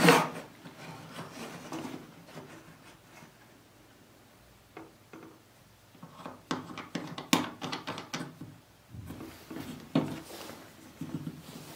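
A wooden block tool with a steel blade scraping and rubbing along a wooden workpiece on a bench, in short strokes mixed with light wooden knocks. It is loudest at the very start, goes quiet for a few seconds, then the strokes come again in two short bouts near the end.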